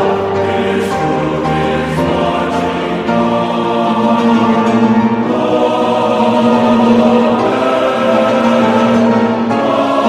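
Background music: a choir singing long, held chords that change every few seconds.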